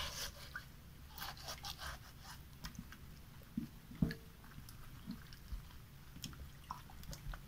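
Kitchen sponge scrubbing the skin of a raw catfish over a metal tray. There is quiet, irregular wet rubbing with small clicks and one sharper knock about four seconds in.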